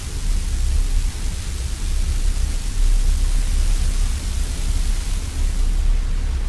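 Radio static with no broadcast coming through: a steady hiss over a deep, fluctuating rumble.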